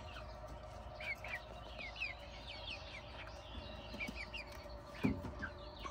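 Chickens clucking softly, with many short, high, falling chirps scattered throughout and a brief louder sound about five seconds in.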